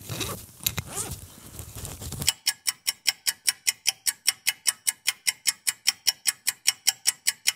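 A short rustle of clothing and handling, then from about two seconds in a fast, perfectly even clock ticking, about six ticks a second: a stopwatch-style ticking effect laid over sped-up assembly footage.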